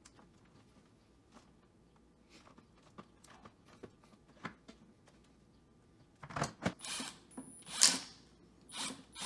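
Light taps and clicks as a plywood tray is handled, then a Milwaukee cordless driver running in several short loud bursts as it drives screws through plastic feet into the tray's base, the loudest burst a little before the end.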